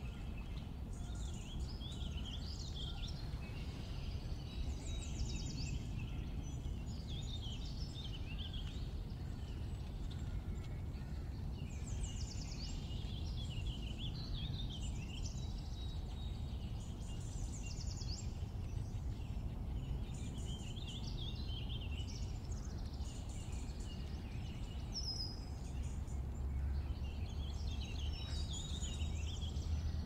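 Several birds singing and chirping in woodland, short trills and quick rising and falling notes overlapping throughout, over a steady low rumble that swells slightly near the end.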